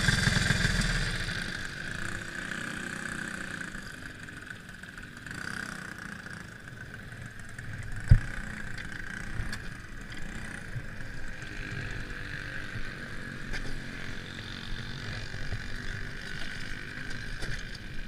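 Go-kart engine coming off the throttle about a second in and then running slowly at low revs, with a single sharp thump about eight seconds in.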